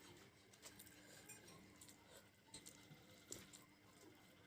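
Faint chewing: a few soft, scattered mouth clicks over near silence.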